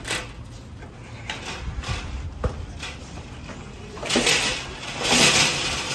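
Metal shopping cart rattling as it is pushed over pavement and through a store's entrance, with a few sharp clicks in the first half and two louder bursts of clatter about four and five seconds in.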